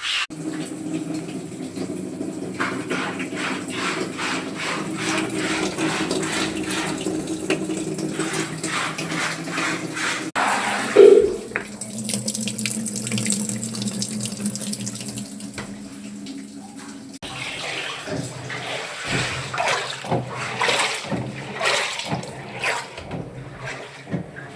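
LG washing machine taking in water, with water splashing and running into the drum over a steady hum. There is a short loud knock about 11 seconds in, and the water sound turns more uneven and sloshing from about two-thirds of the way through.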